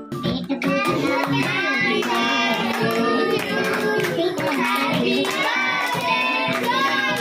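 A group of children singing together, with hand clapping, which starts abruptly and keeps going at a steady loudness.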